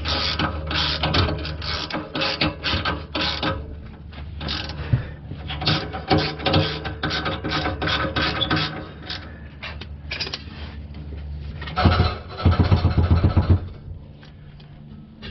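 Hand ratchet wrench clicking in quick strokes, about four clicks a second, while the exhaust flange nuts on a newly fitted catalytic converter are run down. Near the end a louder, denser rattling burst with a low rumble lasts about two seconds.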